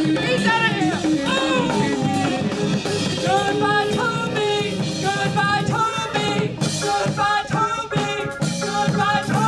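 A male singer with a live band, over drum kit and keyboard.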